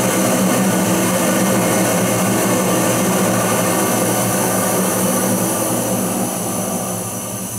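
Gas-fired bakery oven burner running with a steady rushing noise and a low hum, starting to die down near the end as the oven is being switched off.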